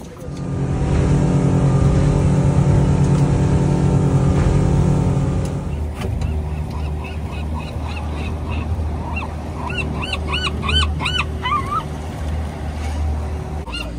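Boat engine running loud and steady for about five seconds, then dropping to a lower steady hum. About ten seconds in, birds give a quick series of short cries over the engine.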